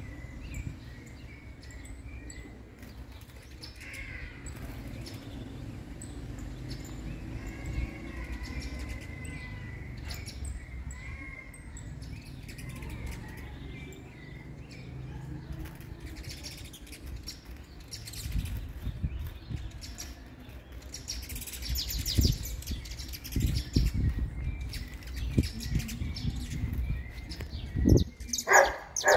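Saffron finches (canário-da-terra) exchanging thin chirps and calls in a territorial standoff, with the loudest burst of calls near the end. Low thuds and rumble in the second half.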